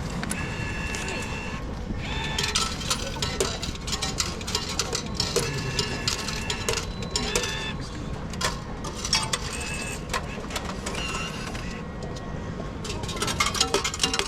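Busy public-hall ambience: frequent clicking and clattering, with short steady electronic beeps or chime tones sounding several times.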